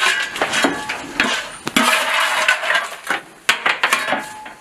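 Steel firing shovel scraping into lumps of coal and clanking, in a run of rough scrapes with a few sharp knocks, as coal is shovelled into a steam locomotive's firebox.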